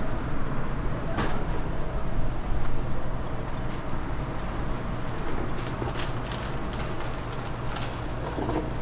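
Steady low rumble of urban background noise, with a few light clicks and clatters scattered through it.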